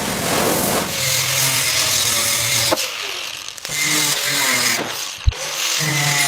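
Power tools working on a car body: a harsh grinding noise for about a second, then a motor hum that shifts pitch from one stretch to the next, with a sharp knock about five seconds in.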